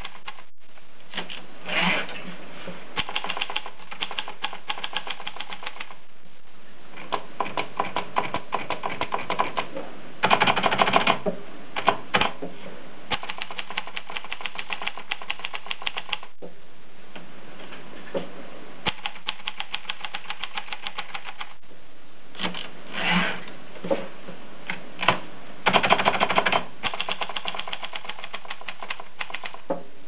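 Groma Kolibri portable typewriter being typed on: quick runs of key strikes, broken by short pauses, with a couple of louder, faster flurries.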